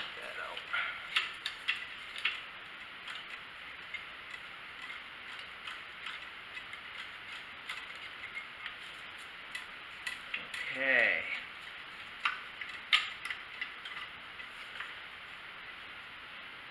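Scattered small metal clicks and clinks of a hand wrench working a bolt on an engine as it is loosened. A short falling tone comes about eleven seconds in, and a few sharper clicks follow soon after.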